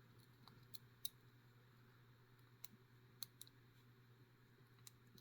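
Faint, irregular clicks of a lock pick working the pin stack inside a small Master Lock 130 padlock, about seven scattered ticks over a low steady hum.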